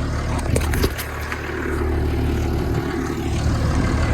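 New Holland T7040 tractor's diesel engine running steadily at a low hum, with a few short clicks and knocks about half a second to a second and a half in.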